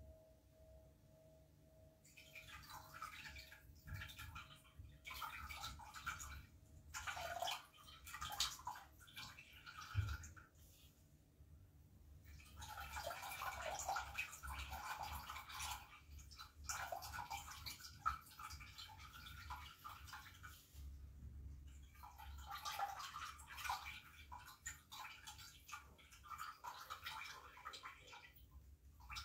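Water splashing and trickling into a brass singing bowl in irregular bursts with short lulls. A singing bowl's faint ringing tone dies away over the first several seconds.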